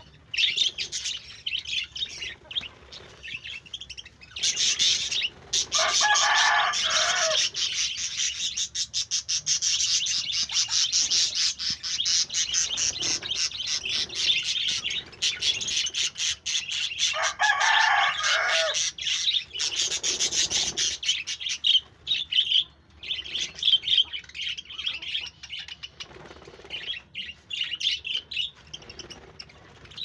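A flock of budgerigars chattering and warbling in an aviary: many rapid high chirps overlapping, densest through the middle and thinner near the start and end. Twice, about six seconds in and again near eighteen seconds, a lower drawn-out call stands out over the chatter.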